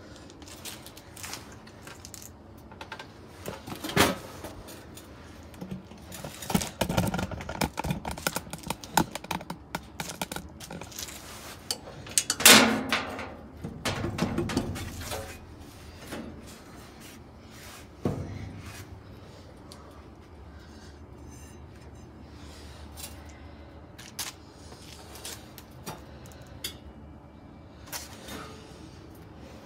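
Scattered metal clinks, knocks and clatter from hands and tools working on the sheet-metal cabinet and transmission of an old belt-drive washing machine. There is a sharp knock about four seconds in, the loudest clatter about twelve seconds in, and fewer, lighter clicks in the second half.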